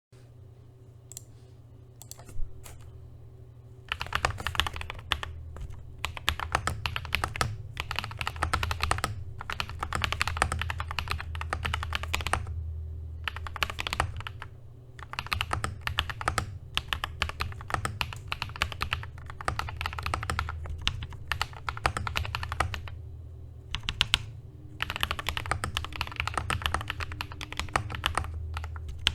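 TM680 mechanical keyboard with Akko CS Matcha Green switches and PBT keycaps being typed on. A few single keystrokes come first, then fast continuous typing from about four seconds in, broken by a couple of brief pauses.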